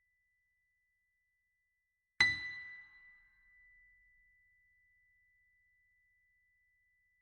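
A single high, bell-like note struck about two seconds in, ringing and fading away over about three seconds, over a faint steady high tone.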